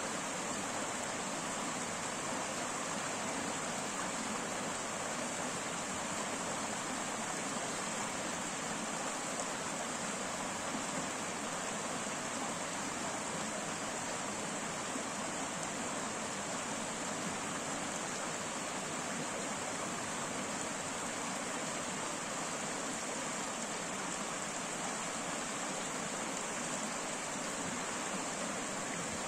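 Shallow rocky stream running over small rapids, a steady rush of water with no change.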